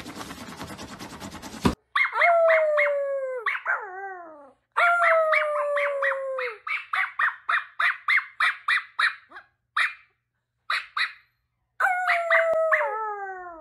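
Howling: long held calls that sag and fall in pitch at their ends, with quick pulsing yips of about four or five a second over and between them. A few separate short yelps come near the end, then one last falling howl. A short stretch of noise comes before them and cuts off about two seconds in.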